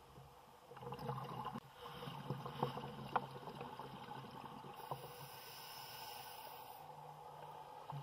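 Underwater bubbling and gurgling from a scuba diver's exhaled bubbles, in bursts about a second in and again from two to three seconds, with scattered clicks, over a low steady hum.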